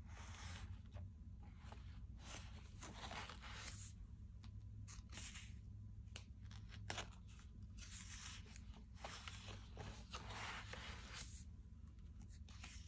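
Faint rustling and crinkling of the thick, sticker-covered pages of a discbound Big Happy Planner being handled and turned over, in several short bursts, over a low steady hum.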